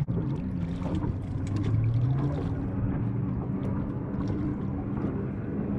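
Steady low hum of a boat motor running, its pitch wavering slightly, with the wash of water and a few faint ticks.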